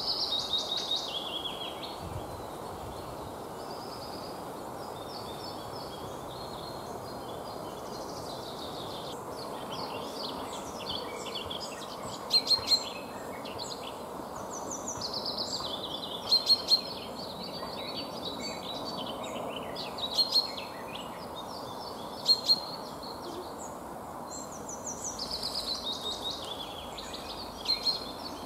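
Wild birds singing around a pond: varied twittering phrases throughout. From the middle on, a short loud call of two or three quick notes comes every few seconds. Underneath is a steady low background hiss.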